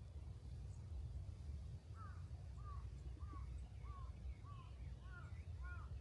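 Birds calling outdoors: a series of short, arching calls starting about two seconds in, roughly one and a half a second, that crowd and overlap toward the end as more than one bird joins in. A steady low rumble runs underneath.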